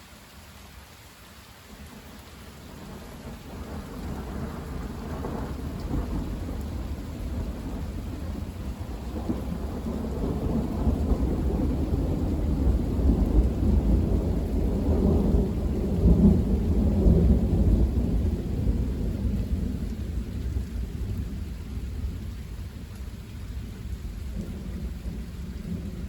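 Long rolling rumble of thunder that builds over several seconds, peaks in the middle and slowly dies away, with rain falling.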